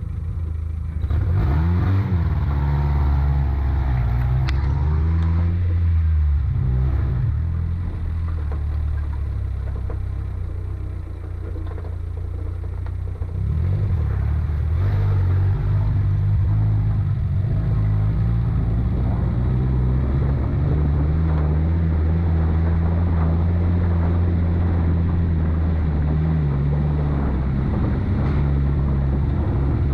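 Off-road vehicle's engine running under load and revving, its pitch rising and falling as the throttle changes. It eases off for a few seconds near the middle, then picks up again and holds steady.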